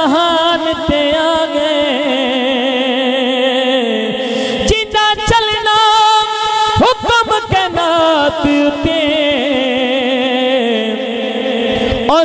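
Male voice singing long, wavering held notes of a naat without clear words, carried through a microphone and loudspeakers.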